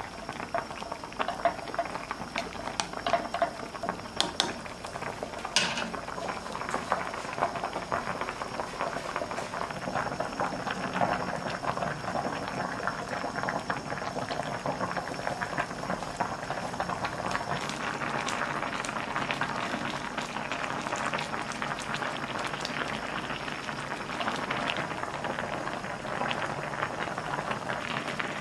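Spicy red broth of soup tteokbokki, with rice cakes and fish cakes, boiling in a pot: a dense, steady crackle of popping bubbles, with a few light clicks in the first several seconds.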